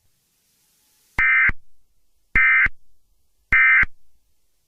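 Emergency Alert System end-of-message data bursts: three short electronic screeches about a second apart, each trailing off in a brief echo, signalling the end of the alert.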